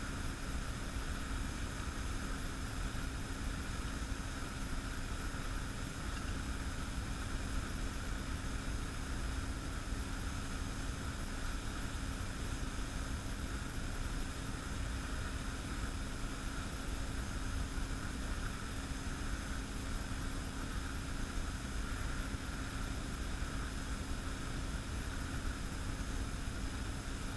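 Steady machine hum with a low rumble and hiss, unchanging throughout, like a motor or fan running.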